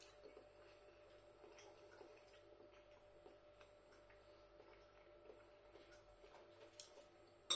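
Near silence: faint room hum with a few scattered soft ticks.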